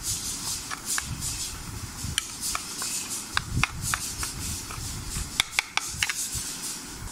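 Metal spoon stirring thick masala paste in a ceramic bowl, scraping and clinking against the sides in scattered sharp ticks, with a couple of louder clicks about five and a half seconds in.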